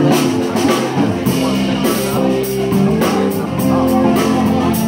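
Live rock band playing: electric guitar, bass guitar and drum kit, with held guitar notes over a steady drum beat.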